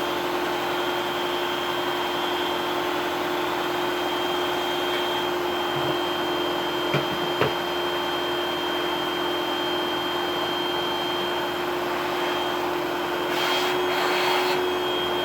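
Vacuum cleaner running steadily, its motor holding a constant whine over a rushing hiss. Two light knocks come about seven seconds in, and the hiss briefly gets a little louder near the end.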